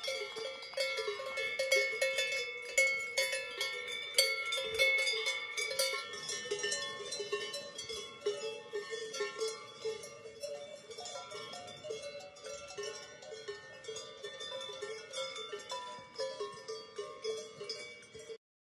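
Cowbells on a herd of grazing cows, many bells clanking and jingling irregularly at several different pitches. The sound slowly grows fainter and cuts off suddenly near the end.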